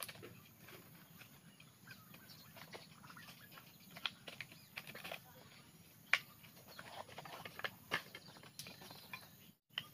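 Light, irregular clicks and knocks of split bamboo strips being handled and fitted into a bamboo frame, the sharpest knock about six seconds in. The sound drops out briefly near the end.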